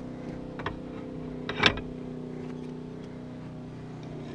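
A steady low mechanical hum, with a small click and then a louder sharp click about a second and a half in as the boat's old tilt steering wheel is handled at its hub.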